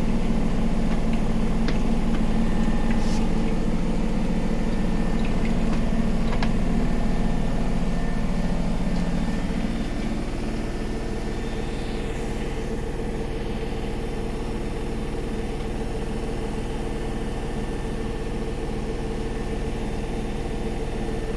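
Samsung WW80R421HFX washing machine running with a steady motor hum and a few light clicks; about ten seconds in, the hum gets a little quieter and shifts in pitch as the drum changes speed.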